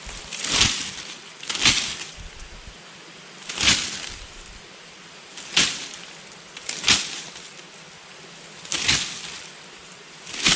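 Repeated short swishing rustles of foliage, seven of them, one every one to two seconds.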